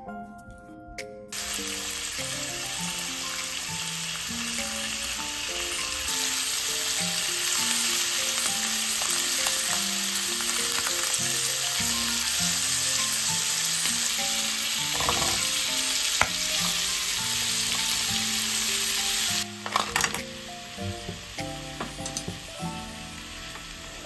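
Chicken thigh pieces frying in oil in a frying pan, a steady sizzle that starts about a second in and grows louder a few seconds later. Near the end it drops off sharply to a quieter sizzle.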